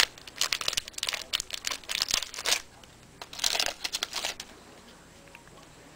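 Wrapper of a football trading card pack crinkling and crackling as it is handled and opened, in two spells over the first four seconds or so.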